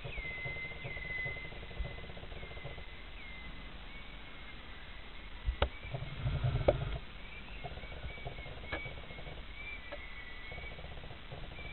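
Birds chirping over outdoor ambience, with a sharp knock about halfway through and a short run of low thuds just after, from a pony's hooves as it takes off over a jump in arena sand.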